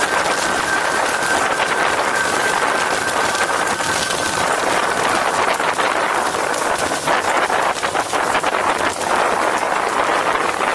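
Wind rushing over the microphone and water hissing off the hulls of a Hobie catamaran sailing at over 30 mph, with a steady high whistle that stops about four seconds in.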